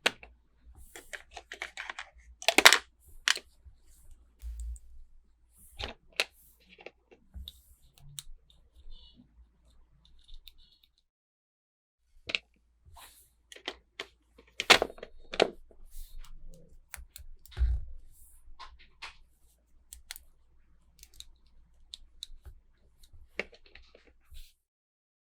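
Toy packaging and small plastic toy pieces being handled: irregular clicks, crinkles and rustles, with a short pause about halfway.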